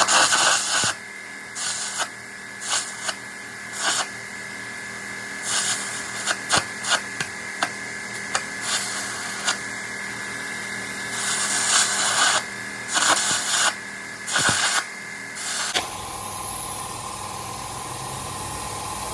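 Angle grinder running with a steady whine, its stone biting into the steel weld in repeated short bursts of grinding noise. Near the end the grinding stops and a steady hiss takes over.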